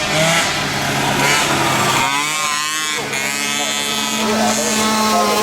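Several flat-track race engines running together, revving up and down as they go round the dirt oval.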